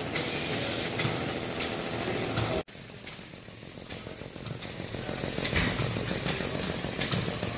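A model flat-six high-speed steam engine running with a steady hum. After a sudden break about two and a half seconds in, it gives a noisier, hissing chatter that slowly grows louder.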